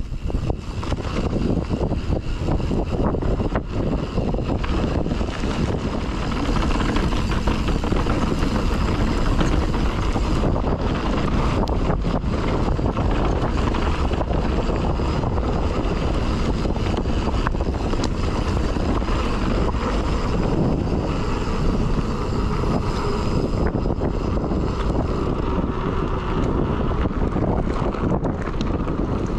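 Wind buffeting the action camera's microphone while a mountain bike rides down a dirt trail, mixed with tyre noise and frequent knocks and rattles from the bike over bumps. The rush grows louder about six seconds in.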